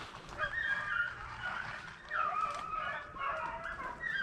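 A pack of rabbit hounds baying on a rabbit's trail, several voices overlapping in long, wavering howls.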